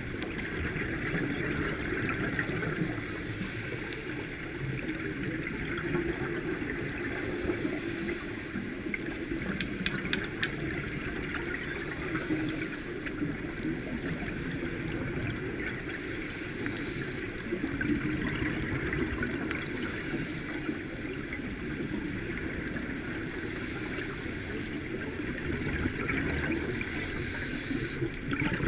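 Steady rushing and lapping of water, without a break.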